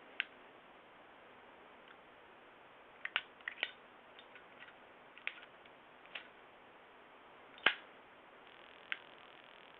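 Zippo lighter clicking open and snapping shut during tricks: about a dozen sharp metallic clicks at irregular intervals, the loudest one a little before the end.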